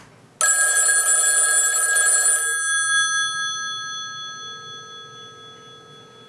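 Old-style rotary-dial desk telephone ringing: one bell ring that starts suddenly a moment in, holds for about two seconds, then dies away slowly.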